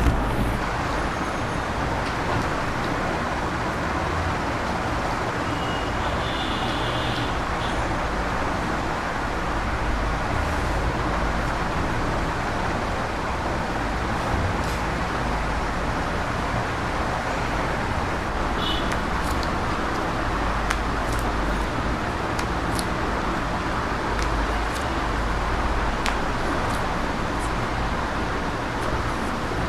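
Steady rushing background noise with a low hum, like distant traffic, broken by a few faint clicks. Two brief high tones sound, one about six seconds in and a shorter one about eighteen seconds in.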